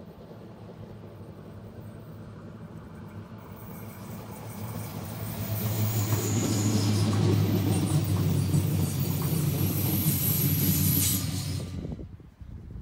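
Südostbahn (SOB) Stadler FLIRT electric train passing close by: wheels rumbling on the rails with a steady low hum from the traction equipment, growing louder as it approaches and loud for about five seconds. The sound cuts off suddenly near the end.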